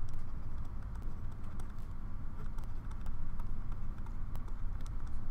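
Stylus writing on a tablet screen: a scatter of light, irregular ticks and taps over a steady low hum.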